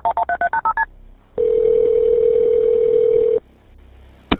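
Touch-tone telephone keypad beeps as a number is dialled, about six quick tones. After a short pause comes a single steady ringing tone lasting about two seconds, the ringback of the call going through.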